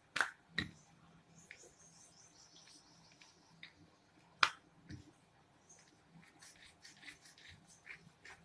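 Wooden rolling pin clicking and knocking against a stone countertop as dough is rolled out. There are two sharp knocks near the start, the loudest knock about four and a half seconds in, and lighter scattered clicks after it.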